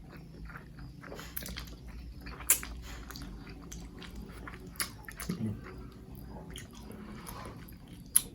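A person chewing spicy Korean instant noodles close to the microphone, with soft wet mouth sounds. A few sharp clicks come through it, and there is a brief low hum just past the middle.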